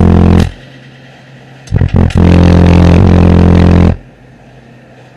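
Skar Audio VD12 car subwoofers playing a bass-heavy track at full level: long, deep bass notes that cut in and out abruptly. A short note ends about half a second in, a few quick stabs follow, then a long note of nearly two seconds, with quieter gaps between.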